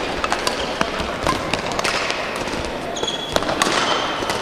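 Badminton rally sounds: a string of sharp racket hits on the shuttlecock and a short high shoe squeak on the court floor about three seconds in, over the steady background noise of a large sports hall.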